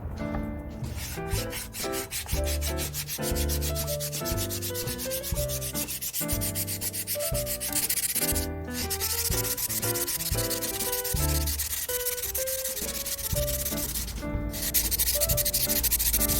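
Rapid back-and-forth sanding strokes rubbing rust off a steel adjustable (monkey) wrench, with short pauses about 8.5 and 14 seconds in, over background music.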